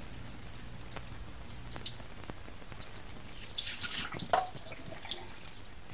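Tap water running and splashing in a sink with scattered drips while a cat is being bathed. The splashing gets busier about three and a half seconds in, with a brief squeak about four seconds in.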